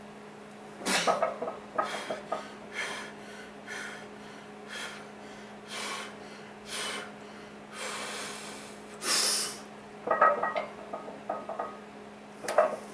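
A person breathing hard in short, sharp breaths and snorts, the loudest about nine seconds in, over a steady low hum.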